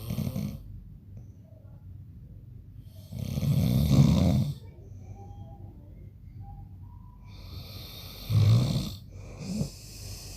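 A man snoring in his sleep: one long, loud snore about three seconds in, then a shorter snore about eight seconds in and a smaller one just after, with breathing heard between them.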